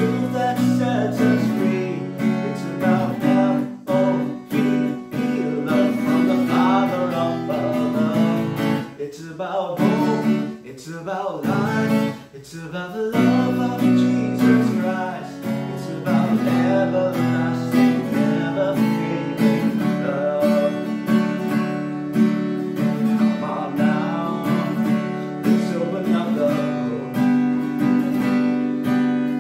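A man singing a worship song while strumming chords on an acoustic guitar, with a short break in the strumming about twelve seconds in.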